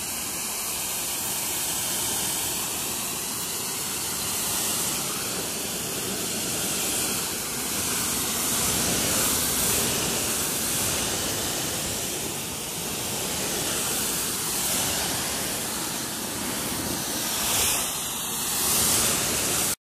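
Ryobi 1900 PSI electric pressure washer's water jet hissing steadily as it rinses a car's rear bumper and splashes onto wet pavement. It cuts off suddenly near the end.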